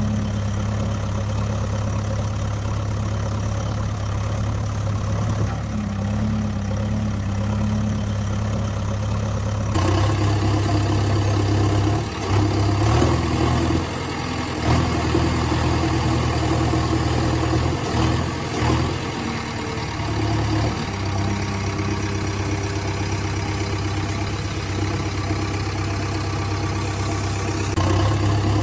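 Steady engine-idling sound, a low even hum of the kind played by a toy excavator's sound unit or laid over as an effect. About ten seconds in it turns brighter and a little louder, with a few brief dips.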